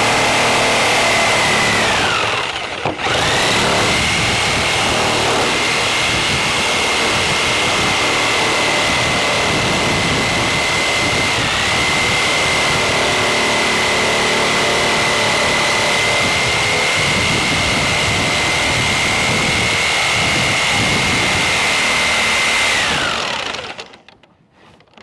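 Electric saw motor running at full speed with a steady high whine, trimming lap siding. About 2 to 3 seconds in the trigger is briefly let off, so the whine sags, then it speeds up again. Near the end the motor is released and spins down to a stop.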